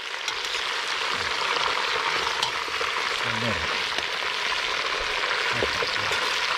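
Pieces of goat meat sizzling steadily in hot fat in a cauldron, while a metal spoon stirs and turns them.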